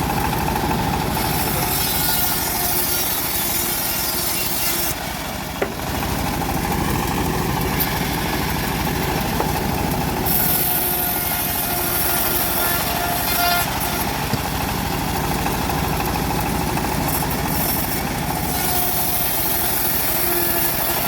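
Homemade bandsaw mill running steadily while its blade cuts through a teak log, with a high hiss that comes and goes in stretches of a few seconds.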